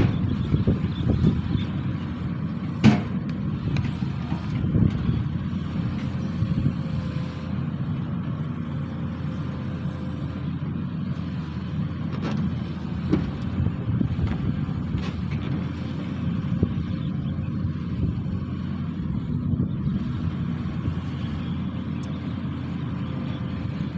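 Sany SY215C excavator's diesel engine running steadily while digging, with a sharp knock about three seconds in and a few fainter knocks later.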